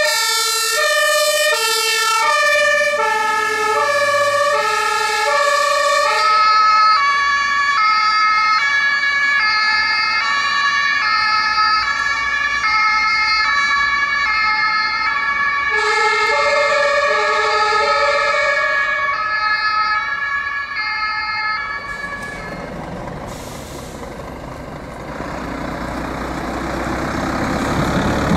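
Two-tone fire-engine sirens (German Martinshorn) sounding, with a second two-tone siren at a slightly different pitch overlapping the first from about three seconds in. The sirens stop about three-quarters of the way through, and then a heavy fire truck's diesel engine and tyres grow louder as it approaches.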